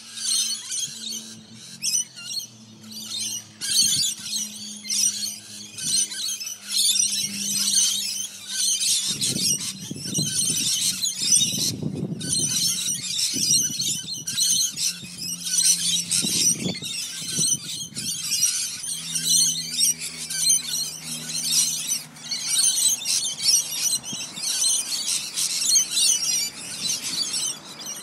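A flock of wild birds calling all at once: a continuous, dense mass of high-pitched chattering and screeching from many birds at a feeding, with a faint low steady hum underneath.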